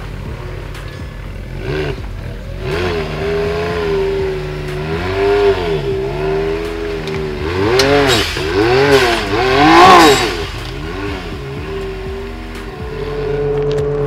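Can-Am Maverick X3 XRC RR's turbocharged three-cylinder engine revving up and dropping back over and over under throttle as the machine crawls over rock, with the hardest revs about two thirds of the way through.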